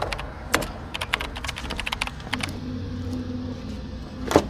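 Computer keyboard typing sound effect: quick, irregular key clicks, dense at first and thinning out, with one sharper click near the end. A low steady hum comes in about halfway through.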